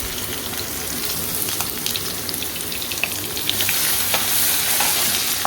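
Chopped ginger and garlic sizzling in hot oil in a pan, with small taps and scrapes of a spatula stirring. The sizzle grows louder about three and a half seconds in.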